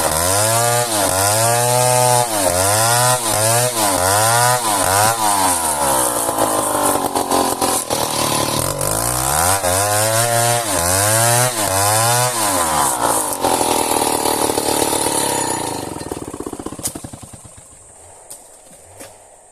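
Two-stroke chainsaw cutting through dense merbau hardwood, its engine pitch rising and falling about once a second as the chain bites and the engine recovers. It runs steadier for a while, then the engine winds down and stops near the end.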